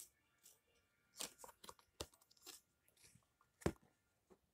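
Faint, scattered handling sounds of trading cards: a few soft rustles and clicks, with one sharper tap about three-quarters of the way through.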